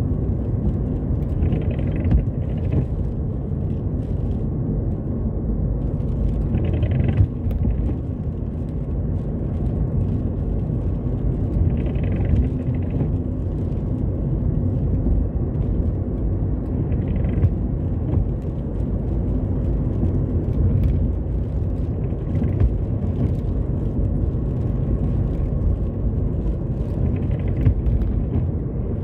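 Car cabin noise while driving: a steady low rumble of engine and tyres on the road. About every five seconds a windscreen wiper swishes briefly across the glass on an intermittent setting.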